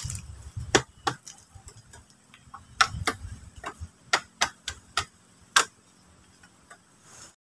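A blade chopping at a wooden shelter pole: about a dozen sharp strikes at an uneven pace, with short pauses between groups.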